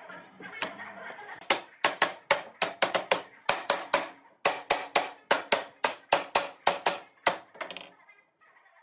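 Fast, even knocking of a wooden block struck down onto a glued-up pine panel held in pipe clamps, about four or five sharp knocks a second, with one short break midway.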